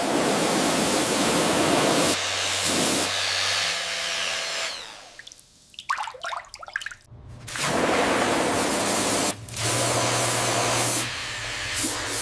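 Water spray hissing in two long bursts, with a steady motor hum under it. Between the bursts come a few seconds of sharp irregular scraping and clicking.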